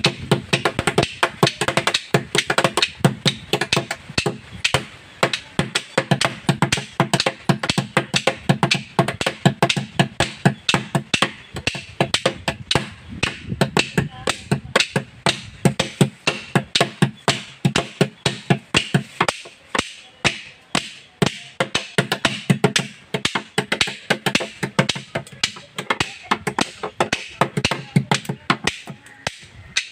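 Children's improvised Pandi melam: two sticks beating fast, steady strokes on a plastic jerrycan slung as a stand-in chenda drum, with two hand-held clappers struck together in time in place of the ilathalam cymbals.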